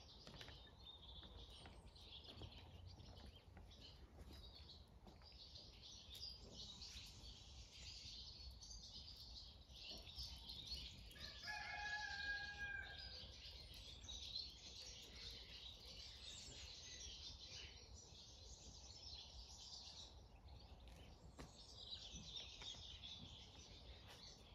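A rooster crows once, faintly, about halfway through. Under it runs a constant high twittering of small birds.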